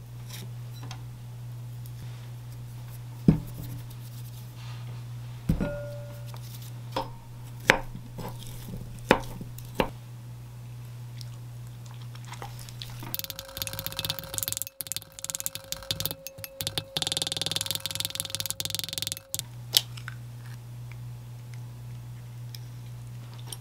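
Food-prep handling sounds: a few sharp knocks and taps of utensils and a glass bowl, then about halfway through some six seconds of cooked sweet potato being mashed with a wooden spoon in a glass bowl, scraping and squishing. A steady low hum runs underneath.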